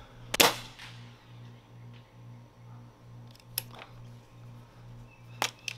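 Crosman Nitro Venom Dusk .22 break-barrel air rifle being worked by hand: a sharp metallic clack about half a second in as the barrel is snapped over, then lighter clicks of the action a few seconds later and twice near the end, as it is cocked and closed for the next shot.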